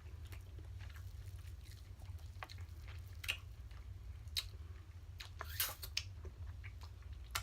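Close-up chewing and mouth sounds of someone eating crab leg meat, with scattered short clicks and crackles, the loudest cluster a little after halfway, over a steady low hum.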